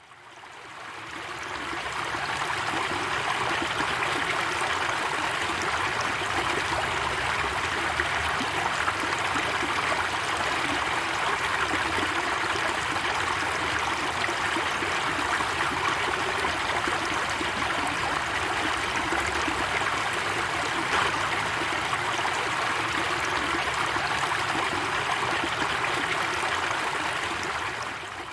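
Waterfall or rushing stream: a steady roar of falling water, fading in over the first couple of seconds and fading out near the end.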